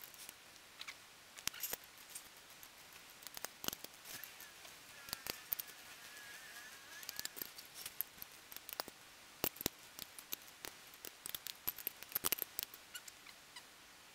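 Small 1/4-inch ratchet and socket clicking against the bolts of a clutch pressure plate, in irregular runs of sharp metallic clicks and taps.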